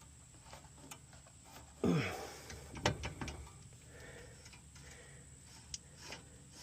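A few light metal clicks and knocks from hands and tools working on a car's coilover suspension, with a short voice sound about two seconds in.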